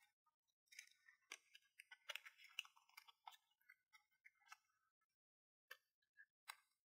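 Faint clicks, taps and crackles of small plastic toy pieces and packaging being handled during an unboxing, busiest in the middle and ending with two separate sharp clicks.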